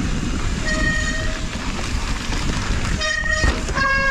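Mountain bike disc brakes singing: three short high-pitched squeals, about a second in, around three seconds and near the end, the last one lower, over the rumble and rattle of the bike rolling down a dirt trail. The brakes are wet from riding through a muddy creek.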